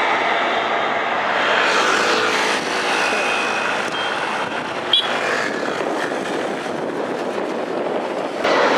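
Road traffic: motorcycles and motor scooters running and passing, a continuous mix of engine noise that grows louder near the end.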